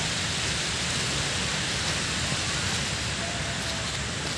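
Steady rushing noise with no distinct events, typical of outdoor wind and water noise on a phone microphone.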